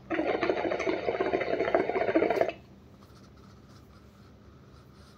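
Cocoyaya Maharaja hookah bubbling for about two and a half seconds as air is pushed through the water in its glass base, then stopping suddenly.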